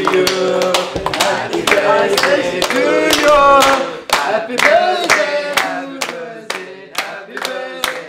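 A group of teenagers singing a birthday song together while clapping in time for the girl with the candle-lit cake.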